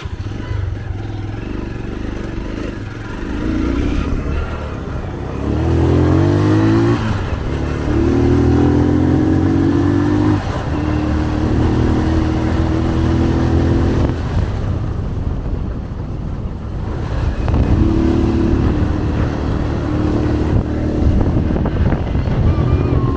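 Motorcycle engine running under way, its pitch climbing as it accelerates about five seconds in, then holding steady. It eases off for a few seconds past the middle and picks up again near the end.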